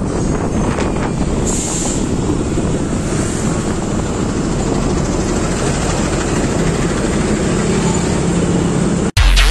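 Steady rush of wind and road noise on a microphone mounted on a moving motorcycle in traffic, with a low rumble underneath. It cuts off suddenly near the end, and electronic music starts.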